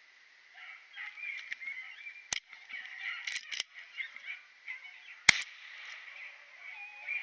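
Two shotgun shots about three seconds apart, the second the louder, with a few smaller sharp reports between them. A pack of beagles bays on a rabbit's trail throughout.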